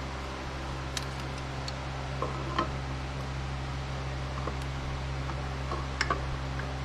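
A few light metallic clicks and taps of small engine parts being handled and fitted, over a steady background hum.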